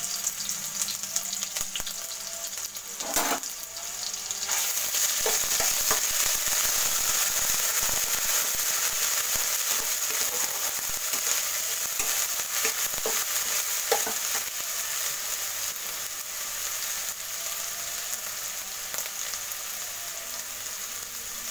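Garlic paste and bay leaves sizzling in hot oil in a kadhai while a steel spatula stirs them, knocking against the pan a few times. The sizzle grows louder about four seconds in and eases slightly toward the end.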